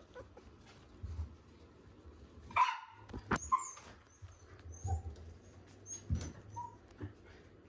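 Shiba Inu puppies giving a few short high yips, the loudest about two and a half seconds in, with a sharp click just after, soft bumps and fabric rustle as they clamber over a person's lap.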